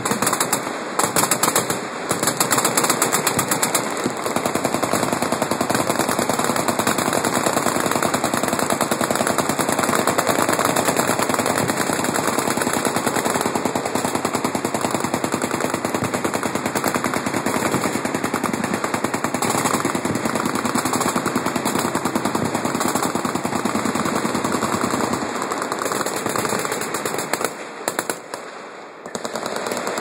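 Many machine guns firing full-auto at once from a firing line, a dense unbroken barrage of shots. The firing slackens for about a second near the end, then picks up again.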